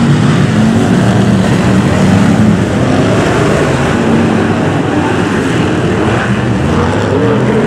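Several BriSCA F1 stock cars' V8 engines running hard in a race, overlapping, their pitch rising and falling as the cars accelerate and ease off.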